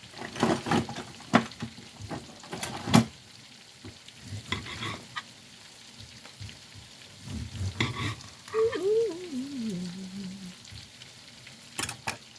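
Food sizzling as it simmers in a cast iron pan, with a string of sharp kitchen knocks and rattles of utensils over it.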